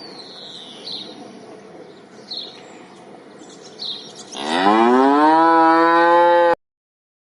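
Faint bird chirps for about four seconds, then a cow lets out one long loud moo that rises in pitch and levels off, stopping abruptly about six and a half seconds in.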